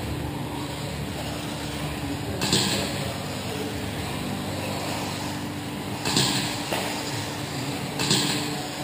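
Electric 2wd RC buggies with 17.5-turn brushless motors racing on an indoor dirt track: a steady mix of motor whine and tyre noise. Three short, louder rushes of hiss come about two and a half seconds in, about six seconds in and near the end.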